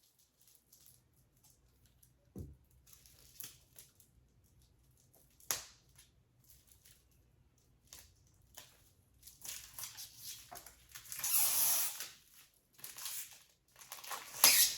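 Packaging being handled and torn open: scattered soft clicks and rustles, then louder ripping around ten to thirteen seconds in and a sharp rip near the end.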